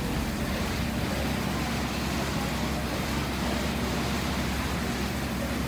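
Assault air bike's fan flywheel spinning fast under hard pedalling and arm pumping: a steady rush of air with a low drone underneath.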